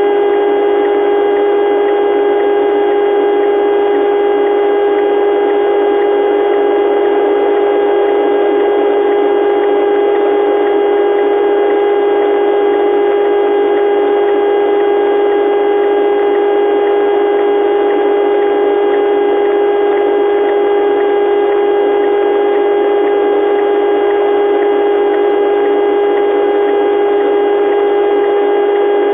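Steady electronic alert tone held without a break over a layer of static hiss, in the manner of an Emergency Alert System broadcast signal.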